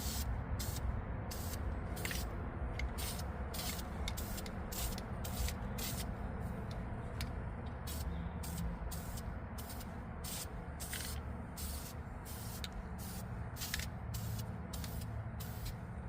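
Spray primer being applied to a brake caliper in quick short bursts of hiss, about two a second: the first coat of primer going on before the caliper is painted.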